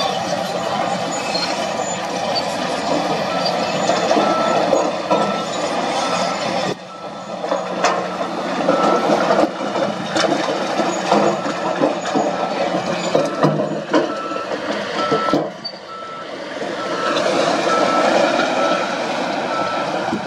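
A heavy-equipment reversing alarm beeping steadily about twice a second over the diesel engines of a wheel loader and a dump truck, with rock and dirt clattering as the truck's tipped bed unloads. The beeping drops out for several seconds in the middle.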